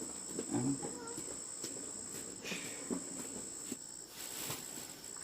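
Insects trilling outdoors: one steady high-pitched drone that drops out briefly a few times.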